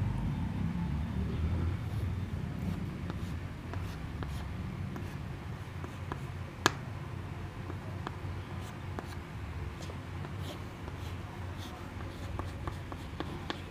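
Chalk writing on a chalkboard: faint scratches and taps as the strokes are drawn, with one sharp tap about two-thirds of the way through, over a low steady room rumble.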